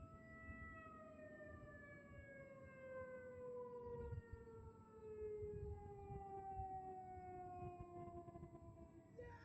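Federal Signal Thunderbolt 1000T civil defense siren winding down at the end of its test run, its tone falling slowly and steadily in pitch. It is faint.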